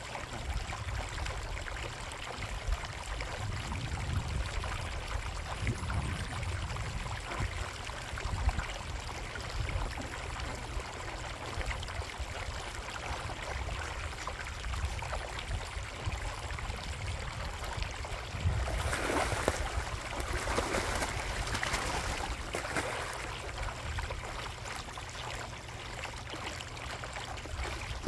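Koi pond water trickling steadily, with a low rumble underneath. The water noise grows louder for a few seconds about two-thirds of the way in.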